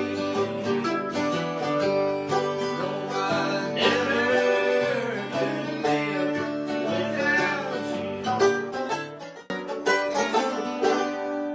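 Bluegrass string-band music played on picked strings.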